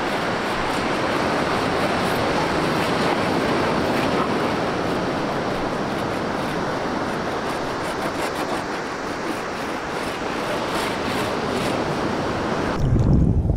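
Surf breaking steadily on a beach, with faint quick scratching strokes of wax being rubbed onto a surfboard. Near the end the sound cuts abruptly to a low rumble of wind and water on the microphone.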